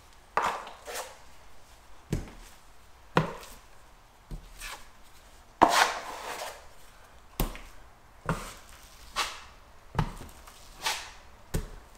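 Drywall knife spreading joint compound on a wall: about a dozen short strokes, roughly one a second, each starting sharply and trailing off. It is the first coat over a taped joint, being spread out about a foot to each side.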